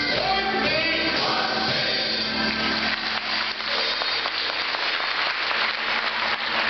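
Men's choir singing the closing notes of a song, then applause rising from about two seconds in over the last held low chord.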